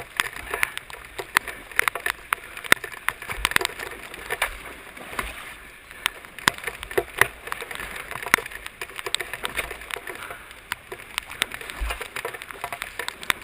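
Flash-flood water rushing and sloshing, with many irregular sharp taps and splashes several times a second.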